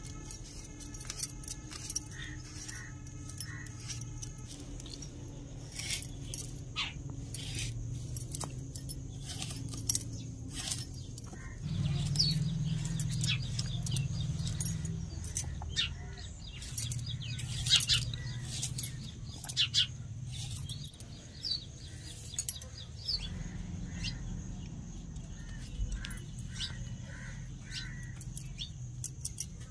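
A knife cutting raw gourd into small pieces, with a run of sharp clicks and light clinks, and birds chirping in the background.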